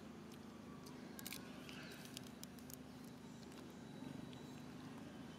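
Faint scattered clicks and crackles, a cluster about a second in, as a long-tailed macaque handles and bites open a peanut shell, over a steady low hum.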